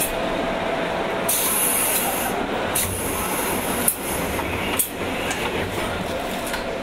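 Running noise of a 201 series electric train heard from inside motor car MoHa 201-199: a steady rumble of wheels on rail, with a second-long hiss starting about a second in and a few sharp clicks over the next few seconds.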